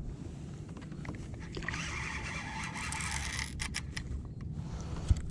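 Scraping, rustling handling noise for a couple of seconds, then a few sharp clicks, over a low steady rumble.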